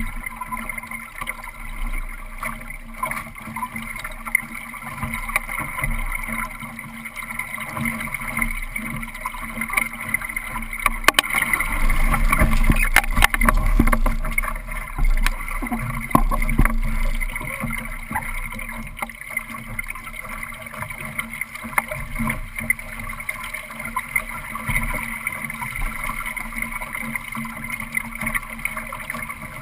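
Water rushing along the hull of a Solo sailing dinghy under sail, with wind on the microphone. About eleven seconds in it grows louder for several seconds, with knocks and rattles as the boat tacks.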